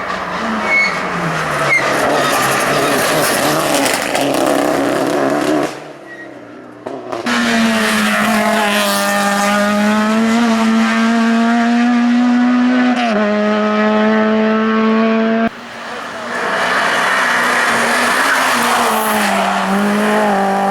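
Hill-climb race cars running flat out on the course, in three short clips cut together: an engine note falling away, then a loud steady high-revving engine tone that dips briefly once, then another car coming through with its engine note building again near the end.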